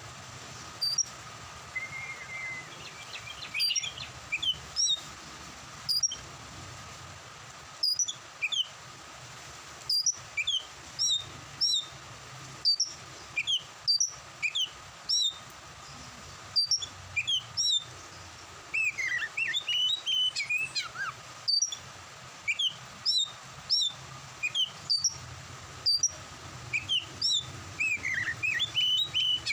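Oriental magpie-robin (kacer) singing: short, clear whistled notes about once a second, with busier rising and falling phrases a little after the middle and again near the end.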